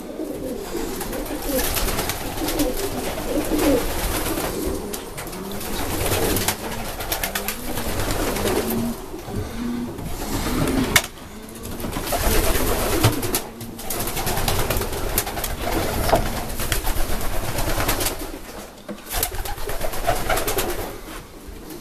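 Racing pigeons cooing continuously in an enclosed loft, many birds overlapping, with a few sharp clicks among the calls.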